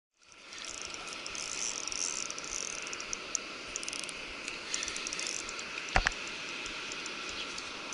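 Fishing reel clicking in quick runs of fine ticks, over a steady hiss, with one sharp knock about six seconds in.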